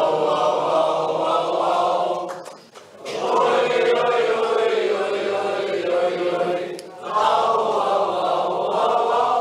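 A crowd singing or chanting together in chorus, in three long phrases with short breaks between them.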